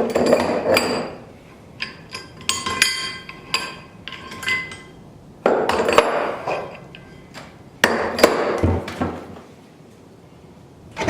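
Loose steel planer parts (gibs, bolts and a spare cutter head) clinking and knocking together as they are handled, with short metallic rings, between stretches of rustling handling noise.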